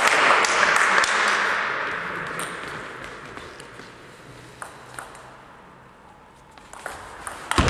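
Audience applauding, the clapping fading away over a few seconds, with a few last scattered claps.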